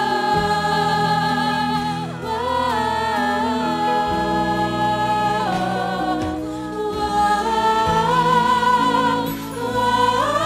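Live gospel worship singing: a group of vocalists holding a "whoa-oh-oh-oh" refrain in harmony over band accompaniment, with long sustained notes and vibrato.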